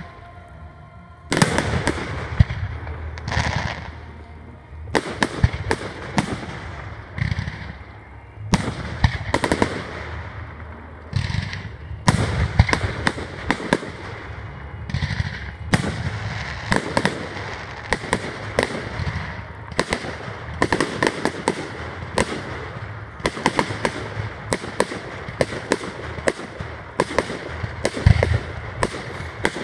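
Fireworks display going off: aerial shells bursting in quick succession with crackling between them. The bangs start about a second in and keep coming with hardly a pause.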